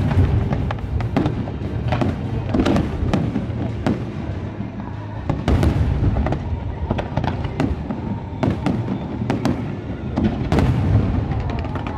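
A fireworks display: aerial shells bursting in quick irregular succession, many sharp cracks and booms overlapping on a continuous low rumble.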